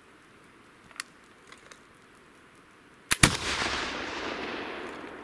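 A click, then about two seconds later a flintlock Baker rifle firing a black-powder shot, its report coming in two quick cracks and followed by a long echo that dies away over about two seconds.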